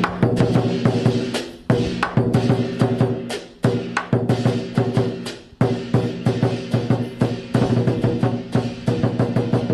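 Traditional Cantonese Hok San lion dance drumming: a fast, dense run of drum strikes with sudden heavy accents every second or two.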